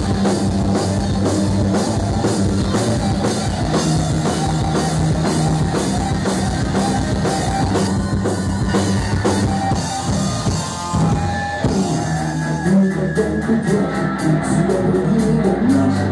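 Live rock band playing with drum kit, bass and electric guitar at a steady beat; about two-thirds through, the drums drop out briefly before the band comes back in.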